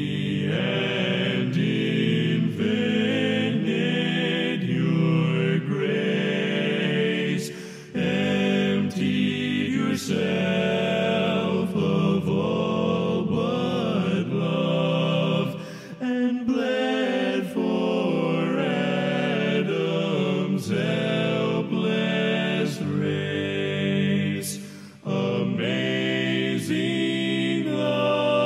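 Background music with voices singing long, held phrases, breaking briefly about 8, 16 and 25 seconds in.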